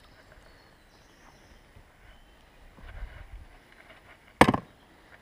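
Faint outdoor background with a single sharp knock about four seconds in, the loudest sound. Soft low rumbling comes shortly before it.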